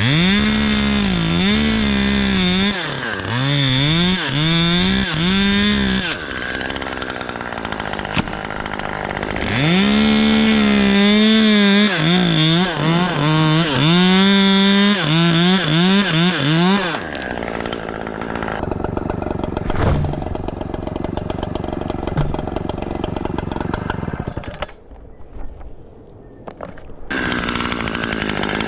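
Stihl two-stroke chainsaw engine revved again and again, its pitch climbing and dropping with each throttle blip. The revving comes in two long spells, each followed by a lower, steadier idle, and picks up again near the end.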